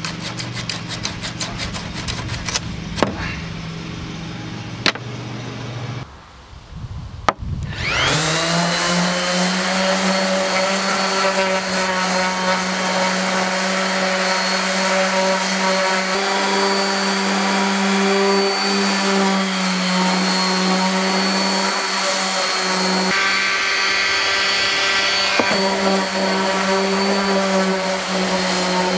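DeWalt random orbital sander starting up about eight seconds in, its pitch rising and settling, then running steadily as it sands rust off a steel saw blade. Before it, a different steady hum with rapid clicking, then a short lull.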